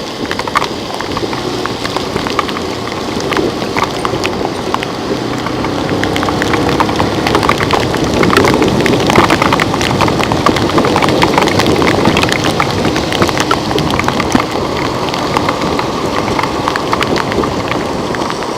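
Heavy rain with many close raindrops tapping sharply, over a steady low hum. It grows louder in the middle and eases toward the end.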